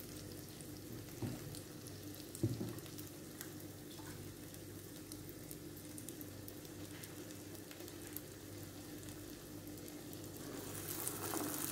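Medu vadai (urad dal batter fritters) frying in hot oil: a steady low sizzle with fine crackling, growing louder near the end. A soft knock about two and a half seconds in.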